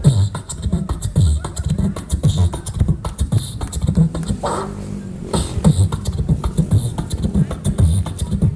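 Beatboxing into a handheld microphone over a PA: fast mouth-made kick and snare hits over low bass hums, with a short falling vocal sweep about halfway through.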